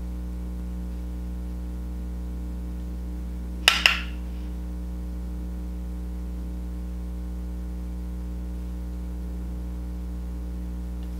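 Steady low hum of room tone, with a quick double click, two sharp clicks a fraction of a second apart, a little under four seconds in.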